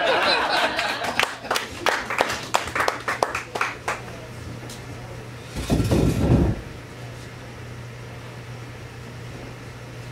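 Audience clapping that thins out and stops after about four seconds. A short low rumble follows about six seconds in, then quiet room tone with a steady low hum.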